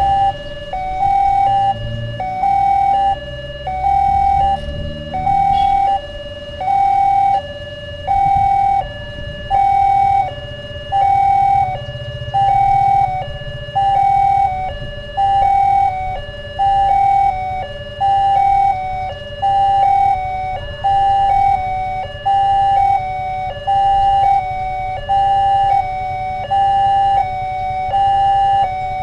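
Railway level-crossing warning alarm sounding a repeating two-tone electronic signal, a higher tone then a lower one, about once every 1.3 s, while the crossing barriers are down for an approaching train. A low rumble of waiting road vehicles runs beneath it.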